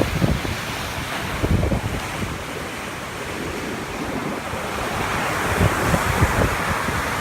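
Storm-driven sea surf breaking and washing ashore, with wind buffeting the microphone in gusty low rumbles; the hiss of the wash swells louder in the second half.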